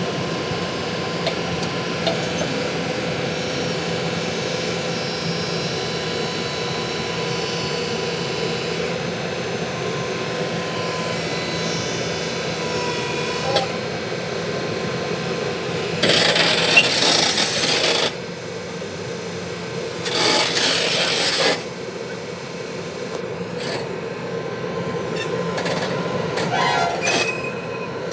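Excavator engine running with a steady hum, broken twice, about two-thirds of the way through, by loud rushing, scraping noise lasting a couple of seconds each, the sound of bucket loads of earth and stones being dumped into a truck bed. Lighter scrapes and clinks follow near the end.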